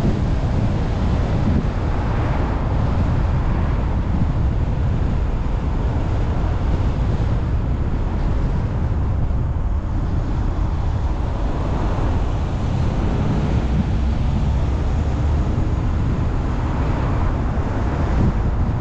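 Car driving, heard as a steady rumble of wind and road noise with wind buffeting the microphone. It swells slightly now and then.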